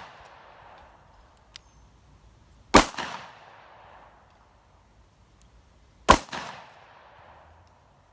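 Taurus Judge revolver firing Hornady Critical Defense .410 shotshells: two shots about three seconds apart, each followed by an echoing tail.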